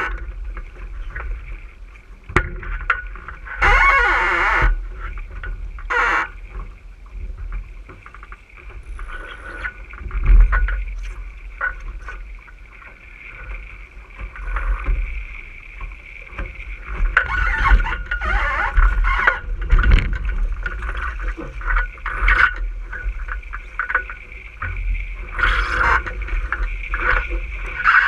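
RS600 sailing dinghy's hull rushing through the water, with spray splashing up in short louder bursts a few times, over a deep rumble of wind buffeting the boat-mounted microphone.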